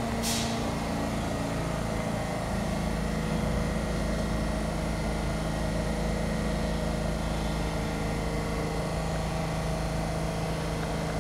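New York City subway train standing on the far track of the station, giving off a steady electrical hum made of several held tones that stays level throughout. A brief high hiss sounds just after the start.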